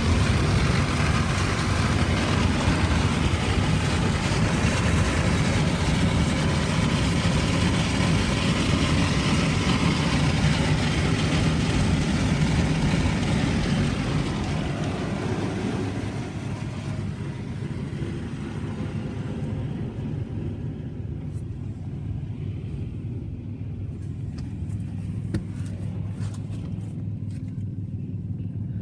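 Automatic tunnel car wash running: a loud steady rush of wash equipment that fades away over a few seconds about halfway through, leaving a low steady hum with a few light taps.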